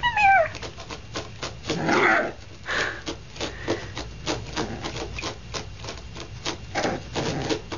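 A Boston terrier puppy gives a short whine that falls in pitch right at the start, followed by a run of light, irregular clicks and a few short breathy huffs.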